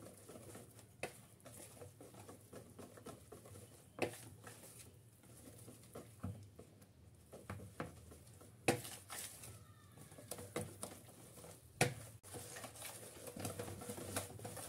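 Wire whisk beating cake batter by hand in a plastic bowl: faint, irregular clicks and scrapes of the wires against the bowl and through the thick batter, with three louder taps.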